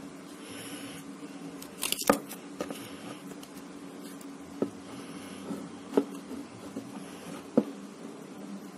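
Sharp clicks and taps from a smartphone's display panel and plastic frame being handled by hand, with a quick cluster about two seconds in and single clicks every second or two after, over a steady low hum.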